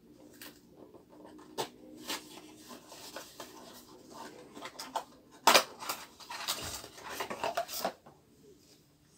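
Hands opening a white cardboard perfume tester box and sliding out a glass perfume bottle: rubbing and scraping of cardboard with scattered small clicks, a sharp knock about five and a half seconds in, and a busier stretch of rubbing and tapping just after.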